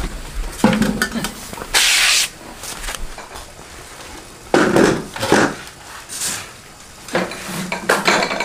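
A small wooden table knocked and scraped as it is carried and set down on a concrete floor, then dishes and a metal tray clattering as the meal is laid on it near the end.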